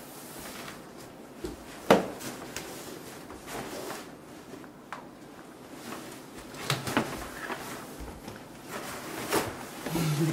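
Quiet room with a few scattered light knocks and clicks, the sharpest about two seconds in, with more near the end.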